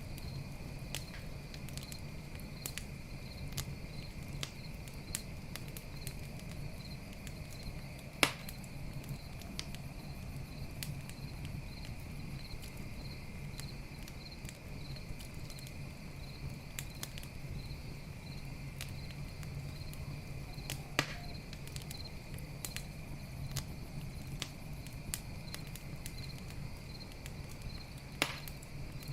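Campfire crackling with frequent small pops and three louder snaps, over the steady pulsing chirp of crickets.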